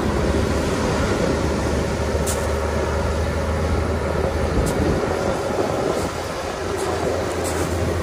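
Caterpillar bulldozer's diesel engine running steadily under load as it drags a whale carcass up the beach on a cable. Its low drone eases briefly about six seconds in, then picks up again.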